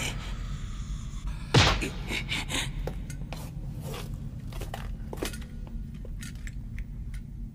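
Scattered small clinks, knocks and scrapes of metal and stone debris, with one louder knock about a second and a half in, over a low steady rumble.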